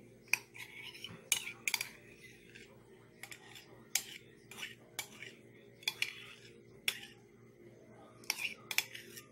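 Metal spoon scraping thick mayonnaise out of a ceramic mug, with sharp clinks of the spoon against the dishware at irregular spacing, roughly one a second and sometimes two in quick succession.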